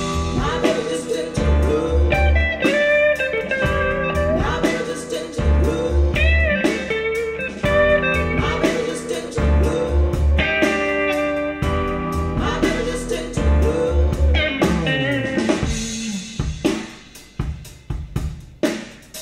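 Blues-rock instrumental break with guitar and drum kit, played through Klipsch RP-600M II bookshelf speakers and picked up by room microphones. Guitar lines bend in pitch over bass, and the kick drum lands in groups of three beats about every four seconds. The playing thins out and drops in level near the end.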